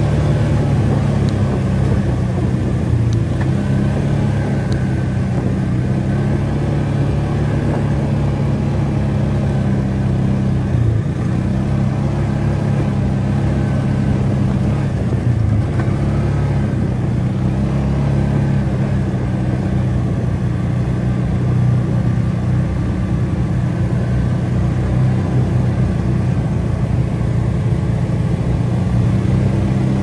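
ATV engine running steadily while under way, its pitch wavering a little as speed changes.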